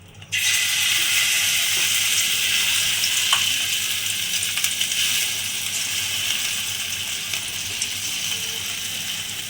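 Wet ground masala paste hitting hot oil in a kadai and sizzling: the sizzle starts abruptly and slowly dies down as the paste settles into the oil.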